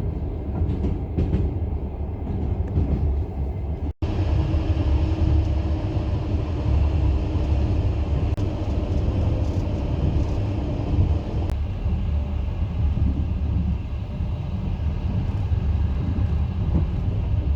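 Passenger train running with a steady rumble of wheels on the track, heard from inside the carriage. The sound briefly drops out about four seconds in.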